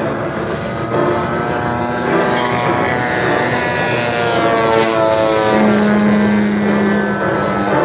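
RC Yak-54 aerobatic plane's DLE-111 twin-cylinder two-stroke petrol engine and propeller running in flight. Its pitch slides down between about three and five seconds in, then holds steady.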